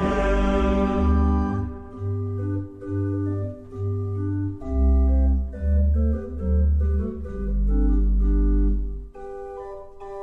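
Organ playing alone, held chords over a deep pedal bass line that moves note by note, as the mixed choir's last sung chord fades out about a second and a half in. Near the end the organ drops to a softer, lighter sound.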